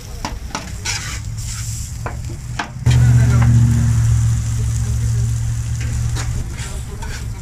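Metal spatula scraping and tapping on a stainless-steel taco griddle while meat and onions sizzle. About three seconds in, a loud low steady hum comes in over the sizzling and becomes the loudest sound, easing off near the end.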